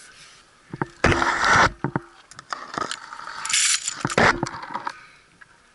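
Close-up handling noise from a telescoping metal pole and climbing gear: scattered clicks, with a long scraping rub about a second in and two more just past halfway.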